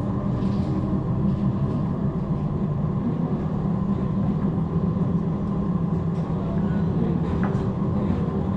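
Steady low rumble of a suburban electric train running along the track, heard from inside the carriage, with a few faint clicks over it.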